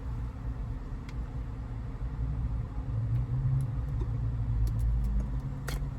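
Steady low rumble of an idling car engine, with a light click near the end.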